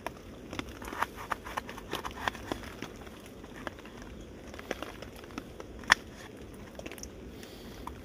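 Small titanium knife cutting a raw potato into chips on a wooden chopping board: irregular knocks and clicks of the blade going through the potato and striking the board, with one sharper knock about six seconds in.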